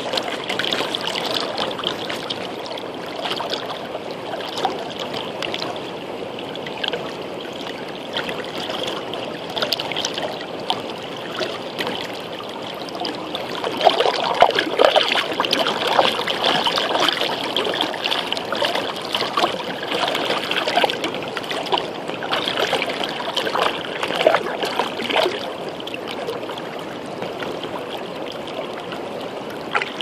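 Shallow river water running over a stony bed: a steady babble full of small gurgles and splashes, louder for a few seconds about halfway through.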